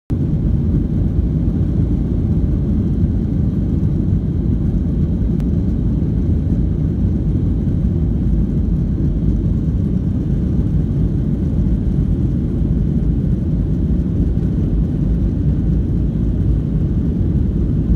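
Steady low rumble of a Ryanair Boeing 737 heard inside the passenger cabin as the jet moves along the ground: engine noise and rolling noise at an even level, with no rise or fall.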